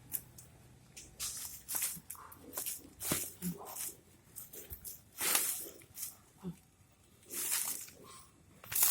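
A series of about a dozen short, irregular rustling and scraping noises, some a second long.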